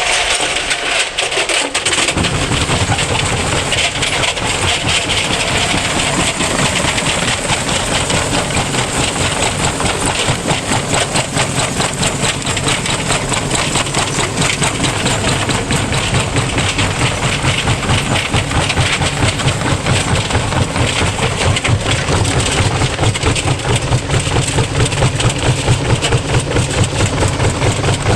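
Electrolux EWF1025 front-loading washing machine on a violently unbalanced spin with a brick in the drum: continuous rapid banging and rattling. A low hum builds in about two seconds in as the drum picks up speed.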